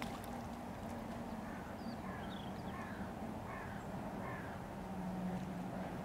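A run of about six short bird calls, each a brief falling note, over a steady low hum.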